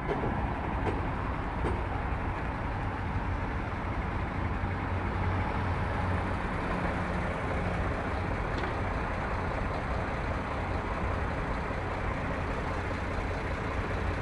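Heavy vehicles and machinery at a road construction site running steadily: a continuous low engine rumble under road noise.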